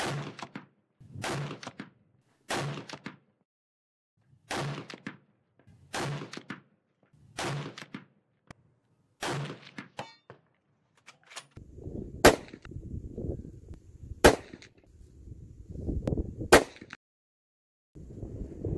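Bolt-action rifle fire: seven single shots at a steady pace, about one every one and a half seconds. After that a low wind rumble on the microphone, with three sharp, louder strikes as bullets hit a hanging steel target plate.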